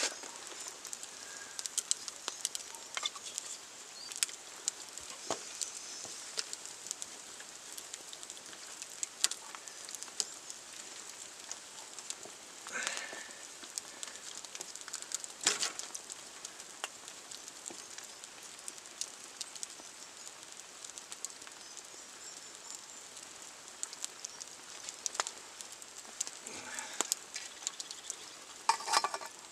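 Wood fire crackling in an open fire pit under a steaming pot of stew: scattered sharp pops over a steady hiss. A few louder scrapes and knocks come around the middle and again near the end as the stew is stirred with a wooden spoon.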